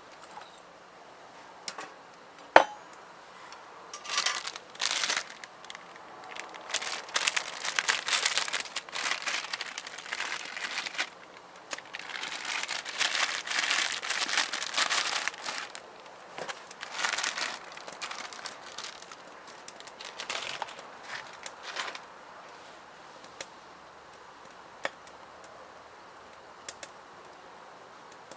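Plastic packaging being handled, crinkled and torn open in irregular rustling bursts, with a single sharp click shortly before.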